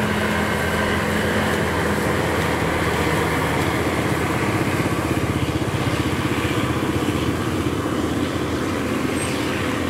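Yanmar YH850 combine harvester running steadily under load while cutting rice: its diesel engine and threshing machinery make a continuous mechanical drone.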